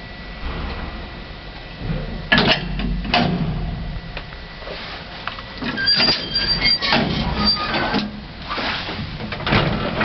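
Lift doors or a lift gate being worked, with two sharp metallic bangs about two and three seconds in, then clattering and scraping metal with a thin high ringing in the second half.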